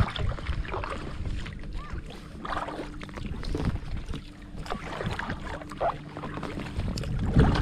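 Kayak paddle strokes: the blades dip and splash into the lake water at an irregular pace, with water running off them.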